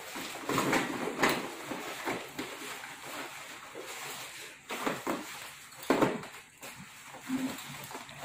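Irregular handling sounds: a few sharp knocks or clicks among rustling.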